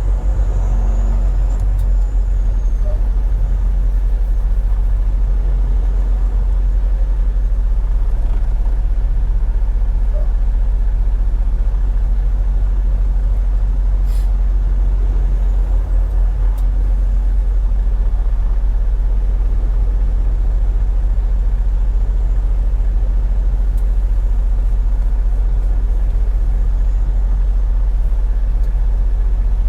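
Semi truck driving at steady speed: a continuous low drone of engine and road noise.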